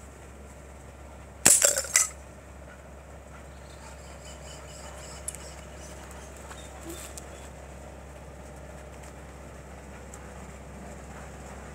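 A glass bottle shattering as a 5.5 mm air-rifle pellet hits it: a sharp crack and burst of breaking glass about one and a half seconds in, lasting about half a second, followed by a few faint clinks of settling shards.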